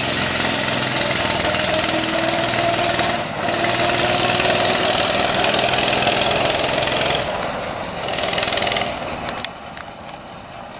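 Small gasoline engine of a ride-on kart running hard with a thumping beat, dipping briefly about three seconds in, then easing off and dropping to a much lower level near the end.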